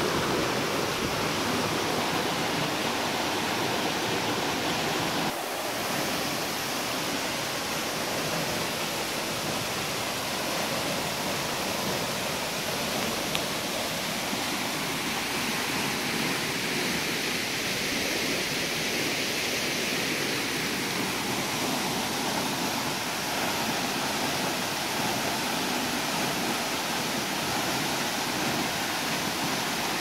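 Tall waterfall dropping from a cliff onto rocks, together with the rocky stream below it: a steady rushing of falling and flowing water.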